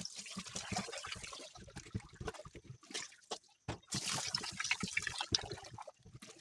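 Water running and splashing as raw chicken pieces are washed by hand, with a short lull about three seconds in.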